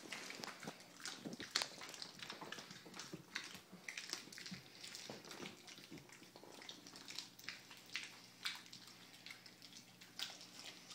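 A dog chewing a chicken leg, its teeth crunching and clicking on the bone in irregular bites.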